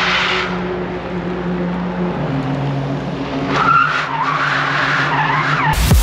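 Rimac Nevera electric hypercar driven hard: a steady electric-drivetrain hum and road noise, with the tyres squealing for about two seconds past the middle. It cuts off abruptly just before the end.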